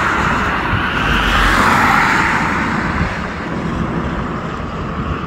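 Steady rush of a passing vehicle that swells about a second and a half in and fades after about three seconds.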